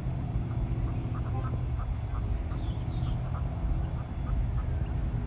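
Ducks quacking in a run of short, repeated calls, over a steady low rumble.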